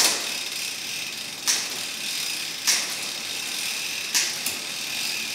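Bicycle chain running over a Garbaruk 11-50 steel cassette as the cranks are turned by hand, with four sharp shift clicks about every second and a half as the SRAM 11-speed derailleur moves the chain from cog to cog. The shifts are crisp and positive.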